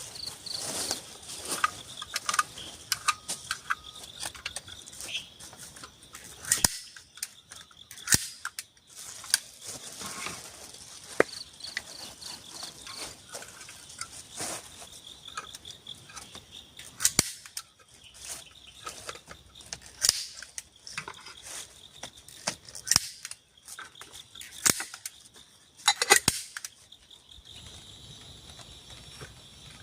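Irregular sharp cracks and knocks, dozens of them at uneven intervals and the loudest about two-thirds of the way in, over the steady high chirring of forest insects.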